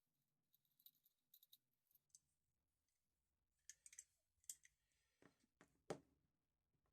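Near silence with scattered faint clicks and a few light knocks from handling, the sharpest knock about six seconds in.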